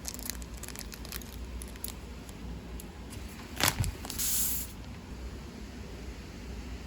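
Keyboard parts being handled on a desk during a build: a run of light plastic clicks, then a single sharper knock about three and a half seconds in, followed by a brief rustle.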